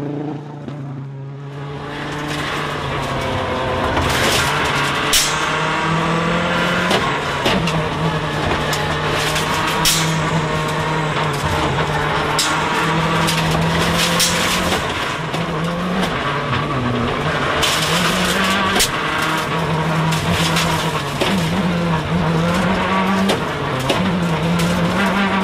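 Mitsubishi Lancer WRC05 rally car's turbocharged four-cylinder engine heard from inside the car at racing speed, its note stepping up and down with repeated gear changes, with sharp cracks now and then. The first couple of seconds are quieter.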